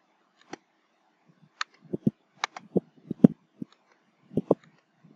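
Scattered light clicks and taps, about a dozen at an irregular pace, from a stylus working a pen tablet as a written number is erased.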